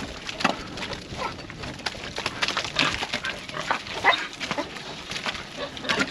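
Pigs squealing and grunting at feeding, mixed with a dog whining: a string of short, irregular calls, some of them brief rising squeals.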